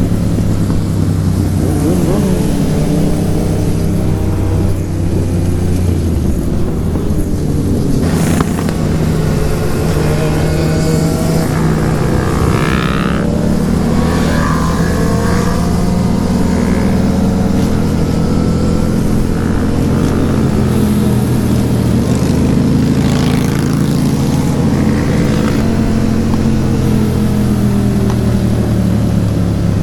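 Motorcycle engine running while riding, its pitch rising and falling slowly with changes in speed.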